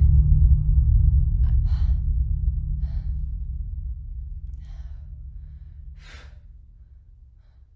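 A deep low rumbling drone fades steadily away to nothing. Over it a woman takes about five short, sharp breaths and gasps as she comes to, the strongest about six seconds in.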